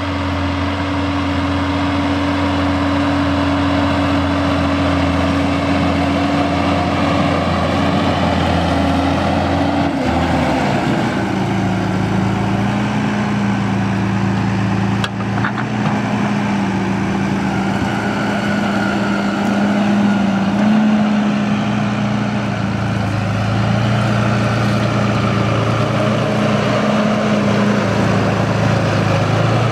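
John Deere 6170R tractor's six-cylinder diesel engine running steadily while pulling a five-furrow plough; about ten seconds in the engine note drops to a lower pitch and holds there. A short click about fifteen seconds in.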